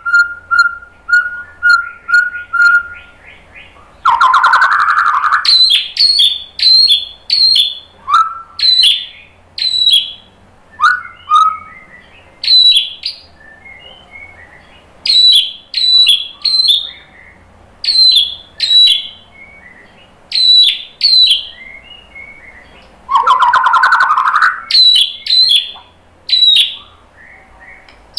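White-rumped shama singing. It opens with a quick run of repeated whistled notes, then gives a long series of loud, clear whistles that fall in pitch. The whistles are broken twice by a harsh, buzzy rattle, a few seconds in and again near the end.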